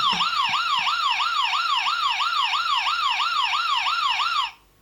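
Electronic ambulance siren sound effect from a Technopark toy ambulance: a fast warbling wail, about three cycles a second, that cuts off suddenly about four and a half seconds in.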